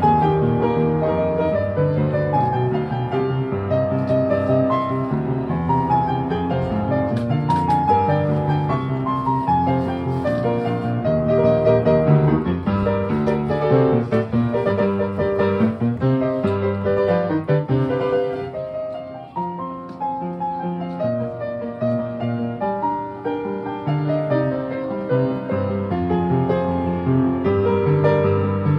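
Street piano being played: a flowing piece with a melody over full chords in the bass. It briefly gets quieter a little past the middle, then returns to full volume.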